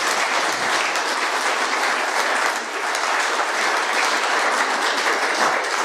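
Audience applauding, dense steady clapping.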